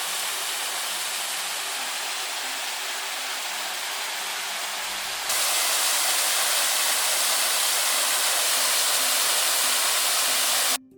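A waterfall's rushing water, a steady dense noise. About halfway through it steps up louder, then cuts off abruptly near the end.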